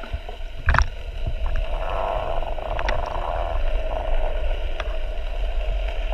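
Muffled underwater sound picked up by a camera held below the surface: a steady low rumble with a few sharp clicks, the loudest about a second in.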